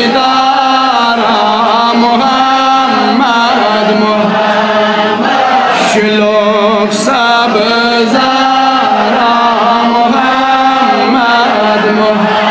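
A man singing a Kashmiri naat, a devotional song in praise of the Prophet, in long phrases whose pitch bends and ornaments as he holds the notes.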